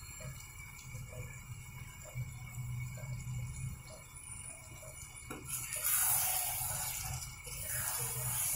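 Metal spatula stirring thick curry in an aluminium karahi, with faint light scrapes at first and a louder scraping, hissing stretch from about halfway through, over a low steady hum.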